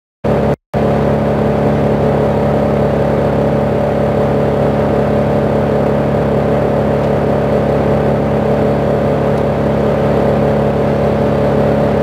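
Large engine of the tree-removal machinery running at a steady speed, cutting in abruptly just after the start with a brief dropout.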